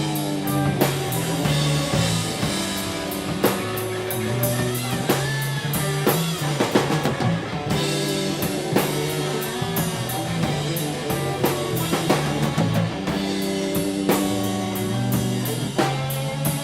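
Rock band playing live: guitar and bass holding steady low notes under a drum kit with frequent drum and cymbal hits, in an instrumental stretch without singing.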